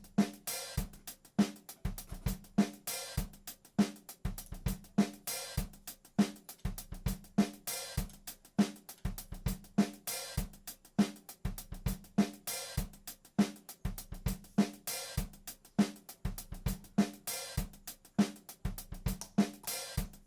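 Background music: a drum-kit beat with snare, bass drum and hi-hat/cymbals keeping a steady rhythm, cutting off suddenly at the very end.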